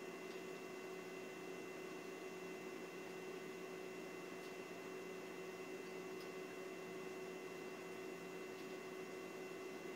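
Steady faint electrical hum with a thin high whine and hiss, unchanging throughout, broken only by a couple of very faint ticks.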